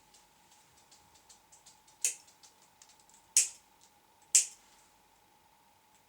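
Grooming scissors snipping a poodle puppy's coat: three sharp snips, about two, three and a half and four and a half seconds in, after a run of faint small clicks.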